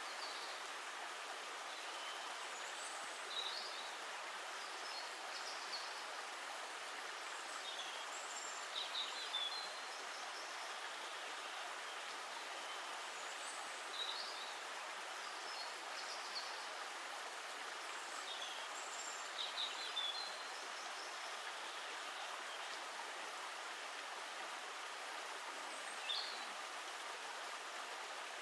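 Steady rush of running water, with short bird chirps breaking in every few seconds.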